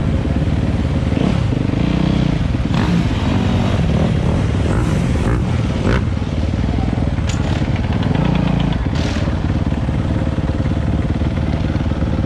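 Several dirt bike engines running steadily and loudly.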